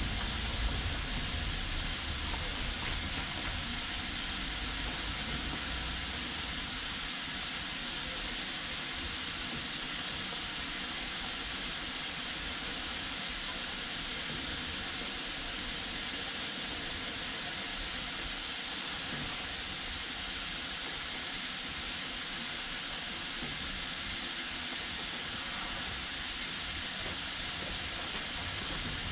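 Steady hiss of a steam locomotive with the rumble of a slow-moving train; the low rumble dies down about six seconds in.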